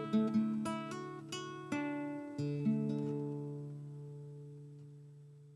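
Acoustic guitar playing the last bars of a song: a few picked notes, then a final chord about two and a half seconds in that rings on and slowly fades out.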